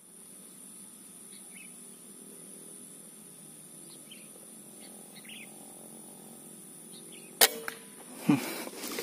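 A single sharp air-rifle shot about seven and a half seconds in, fired at a perched spotted dove, followed about a second later by a dull thump. Before the shot there are a few faint bird chirps over a steady high-pitched background hum.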